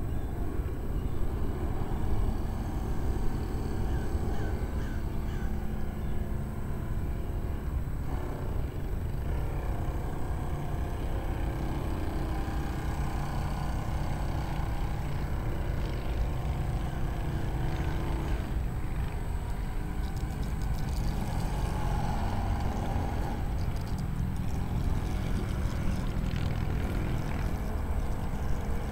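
Electric RC V-hull boat's motor and two-blade propeller running out on the water, a faint whine that shifts in pitch as the boat speeds up and slows. Under it is a steady low rumble.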